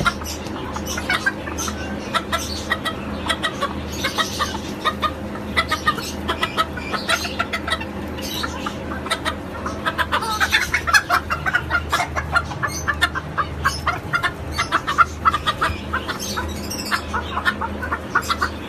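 A flock of bantam chickens clucking continuously, many short overlapping clucks, with a steady low hum underneath.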